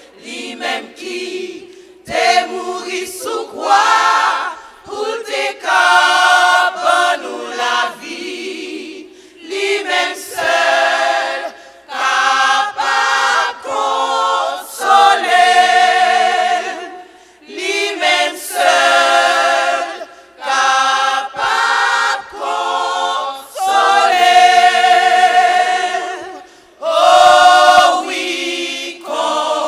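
Women's gospel choir singing in several voices in phrases with short breaks between them, unaccompanied.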